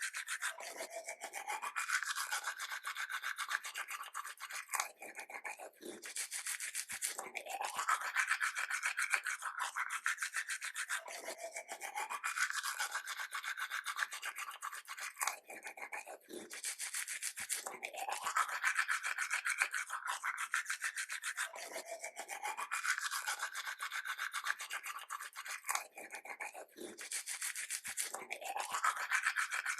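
Toothbrush scrubbing teeth with quick back-and-forth strokes, in runs that rise in pitch and repeat about every three and a half seconds.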